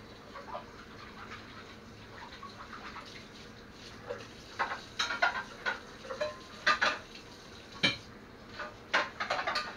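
Dishes and utensils clinking and knocking at a kitchen sink: quiet at first, then a run of short sharp clatters from about four seconds in, with a heavier knock near eight seconds and a quick cluster near the end.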